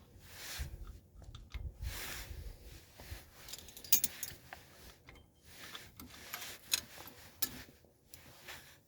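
Metal rear drum-brake parts clinking and rattling as they are handled and fitted by hand, with irregular sharp clicks among rustling.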